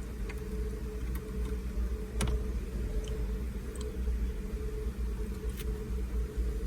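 A few faint clicks of small screwdriver tips working at the plastic locking tabs of a push start switch, the clearest about two seconds in, over a steady low hum.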